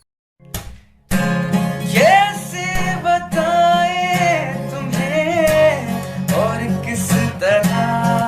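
Background music: after a short gap, a song starts about a second in, with acoustic guitar strumming and a sung melody.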